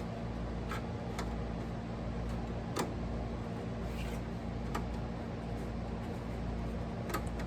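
About half a dozen light clicks and taps of hands and tools handling computer hardware, the sharpest about three seconds in, over a steady low electrical hum.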